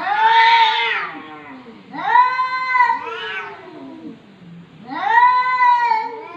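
Two cats in a face-to-face standoff, yowling at each other: three long, loud, drawn-out yowls, one at the start, one about two seconds in and one near the end, with quieter, lower moaning between them.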